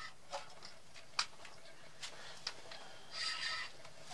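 Faint handling noise from a spinning rod and reel while a catfish is being played through the ice: a handful of irregular light clicks, and a brief rustle a little after three seconds in.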